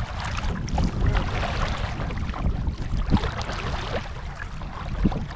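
Canoe being paddled: water noise from the paddle strokes, with wind rumbling on the microphone and two sharp knocks about three and five seconds in.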